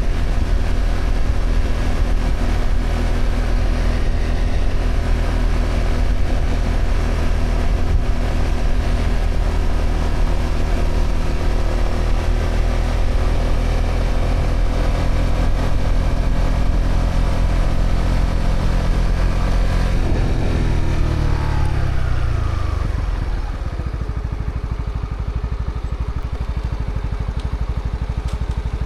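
Honda CB125R's single-cylinder four-stroke engine through its stock exhaust, running at steady revs. About twenty seconds in, the revs fall away over roughly three seconds as the bike slows, then settle to a low, steady note.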